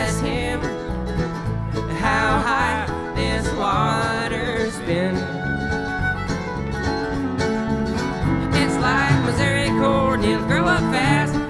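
Folk band playing live: an instrumental passage of a country-bluegrass tune on acoustic string instruments, with wavering melody lines over a steady bass beat.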